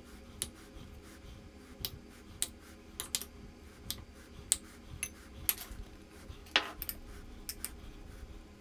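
A metal fork clicking and tapping against a bowl and a glass oven dish as mashed potato is scraped off and spread: a dozen or so scattered sharp clicks, the loudest about six and a half seconds in.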